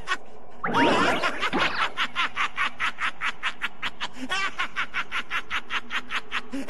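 Majin Buu's cartoon voice giggling in quick, even pulses of about five a second, for several seconds without a break. About a second in, a loud sweeping sound effect comes just before the giggling starts.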